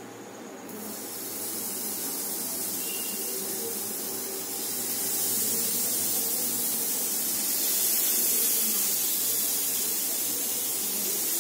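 Marinated paneer tikka skewers sizzling on a hot, oiled flat iron tawa as they are laid down. The steady hiss starts about a second in and grows louder about five seconds in as more skewers go onto the pan.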